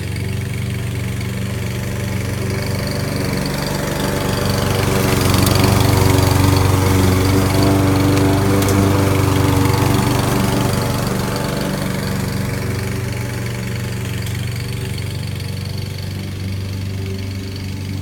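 Husqvarna walk-behind lawn mower's gasoline engine running at a steady speed as the radio-controlled mower cuts grass. It grows louder as it passes close by, peaking about halfway through, then fades as it moves away.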